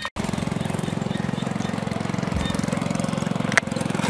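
A small engine running steadily with a rapid, even pulse, after a brief dropout at the start; a sharp click about three and a half seconds in.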